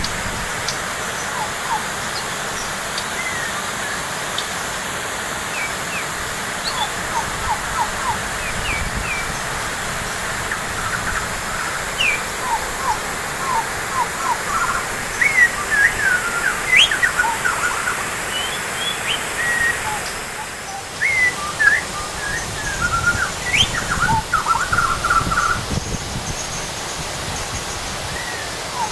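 Small birds chirping and whistling in short calls that grow busier through the middle, over a steady rushing noise of water.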